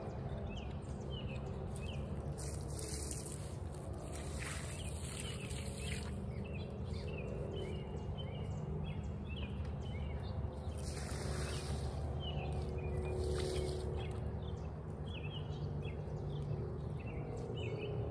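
Small birds chirping over and over in short high notes above a steady low outdoor rumble. A few brief hissing splashes come about four and eleven seconds in as water from a bucket is poured onto garden beds.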